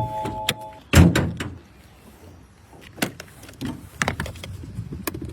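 A short electronic beep, then a solid thud of a car door shutting about a second in, followed by scattered light clicks and knocks.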